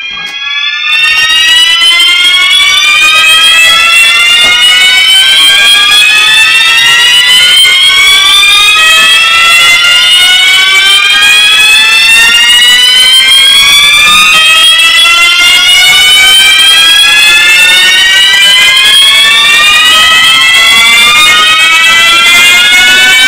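Building fire alarm sounding loudly: a slow upward-sweeping tone with several overtones, each sweep climbing for about five and a half seconds before dropping back and starting again. It jumps much louder about a second in.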